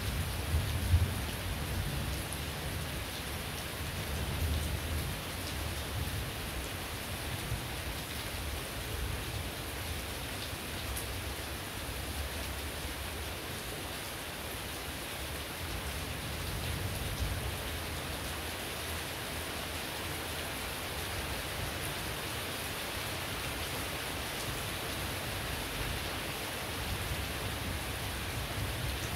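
Heavy rain falling steadily, an even dense hiss of drops hitting the ground, with a low rumble underneath in the first few seconds that fades away.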